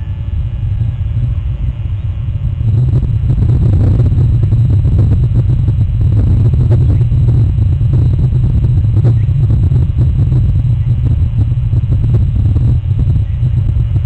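Loud, steady low rumble on an outdoor webcam's microphone, growing rougher and louder about three seconds in.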